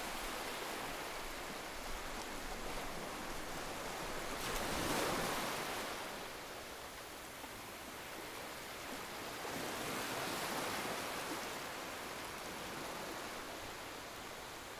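A soft, steady rushing noise, like a relaxation ambience bed, that swells about five seconds in and again around ten seconds.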